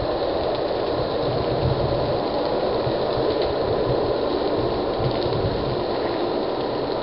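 Steady, loud rushing noise with no clear pitch, broken by irregular low thumps.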